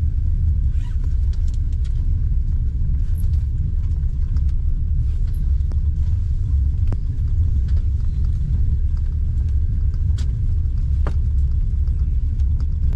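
Steady low rumble inside a passenger train carriage, with a few faint clicks scattered through it.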